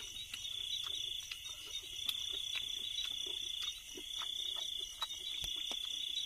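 Crickets trilling in a steady, high-pitched chorus that drops out briefly about four seconds in, with a few faint clicks and taps over it.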